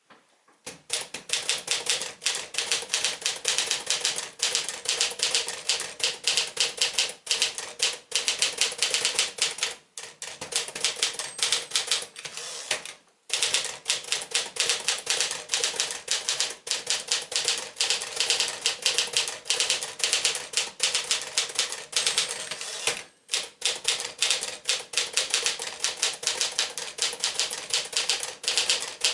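1955 Smith-Corona Silent-Super portable manual typewriter being typed on at speed: a rapid, steady stream of key strikes clacking against the platen, broken by short pauses about 10, 13 and 23 seconds in.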